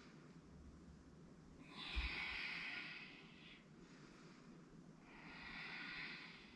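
A person breathing audibly during a yoga pose: two long, airy breaths, one starting about two seconds in and another near the end. A brief low thump comes at the start of the first breath.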